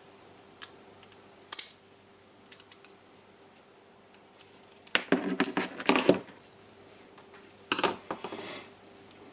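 Small clicks and handling noises of tool parts and wires being worked by hand, with a burst of clattering and rattling about five seconds in and another short clatter near the end.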